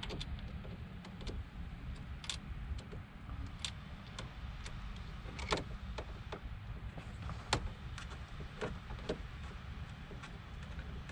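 Scattered clicks and taps of hand tools and small parts being handled, a dozen or so at uneven intervals with two louder knocks midway, over a steady low rumble.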